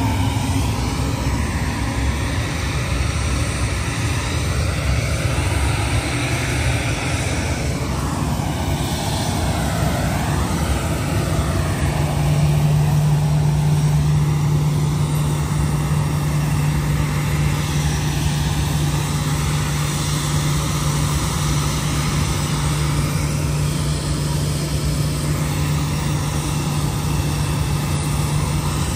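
Steady vehicle noise throughout, with a wavering whine rising and falling about a third of the way in, and a steady low hum setting in at about twelve seconds.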